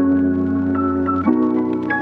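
Background music of sustained organ-like keyboard chords, changing chord a little past halfway.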